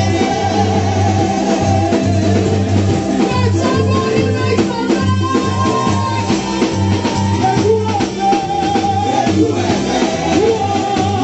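Upbeat gospel praise music: a woman singing into a microphone over keyboard and a steady drum beat.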